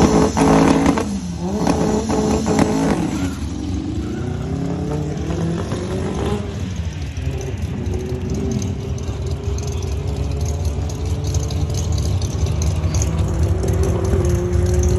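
Volkswagen GTI's turbocharged four-cylinder revving up and down at the drag-strip start line, then launching and accelerating hard, its pitch climbing and dropping through several gear changes. In the second half a steady engine tone rises slowly as the car runs on down the quarter mile.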